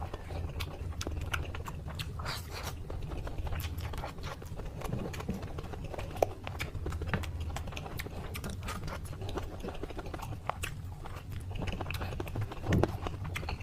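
Close-up chewing and crunching of crispy food: many irregular sharp crackles, over a steady low hum.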